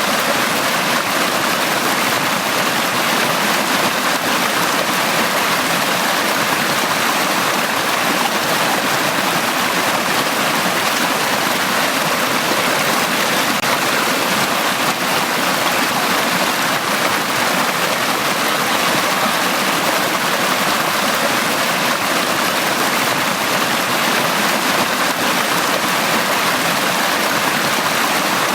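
Mountain valley stream flowing steadily over rocks, a continuous rushing splash with no change in level.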